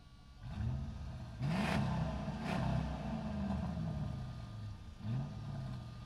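Heavy truck engine pulling away about half a second in, revving up about a second and a half in and again near five seconds, with short bursts of hiss around the second mark.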